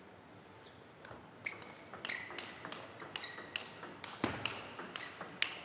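Table tennis rally: the ball ticking off the rackets and bouncing on the table in a run of sharp clicks, about two to three a second, starting after a quiet first second. A single low thud comes about four seconds in.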